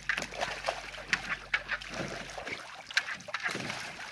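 Dog splashing about in her pool: water slopping with many short, irregular splashes as she goes after a floating buoy. A low hum cuts off a little past halfway.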